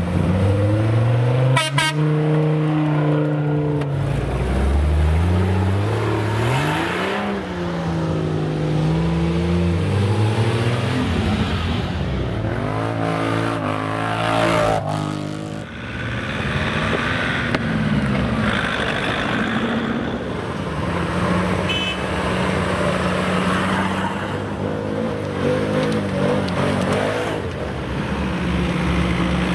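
Engines of several off-road 4x4s and ATVs running and revving, their pitch rising and falling repeatedly, with a quad bike passing close about halfway through.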